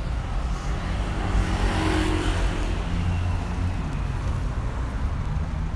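City street traffic: a steady low engine rumble, with a vehicle passing that swells about two seconds in and fades away.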